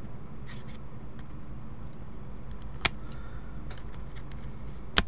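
Hands handling a trading card taped between two plastic top loaders: faint rustling and small ticks, with a sharp click a little under three seconds in and another near the end, over a steady low hum.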